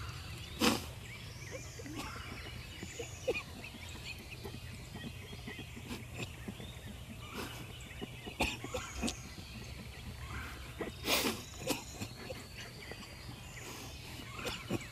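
Wild turkey gobbler scuffling with a strutter turkey decoy: a few sharp thumps and flaps, the loudest about eleven seconds in, over songbirds singing and a steady low rumble.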